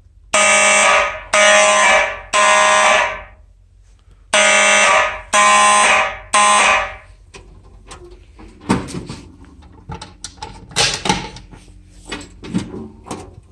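Simplex electromechanical fire alarm horns sounding together in a temporal-three evacuation pattern: two groups of three buzzy blasts, each about a second apart, with a pause between the groups. The horns stop about seven seconds in, and a series of scattered clicks and knocks follows.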